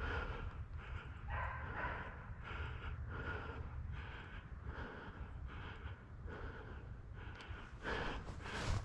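Deer-hunting dog barking over and over, about two barks a second, with a low rumble of wind or handling on the microphone beneath.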